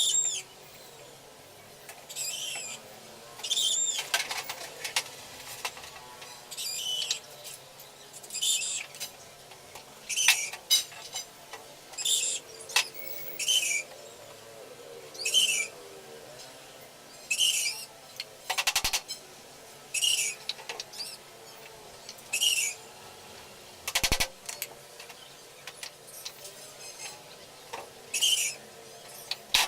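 A bird calling over and over, one short high chirp every second or two, with a few sharp knocks in between.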